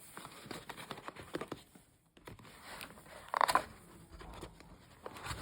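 Packaging being handled: crinkling and rustling with a run of small clicks, and a louder rustle about three and a half seconds in.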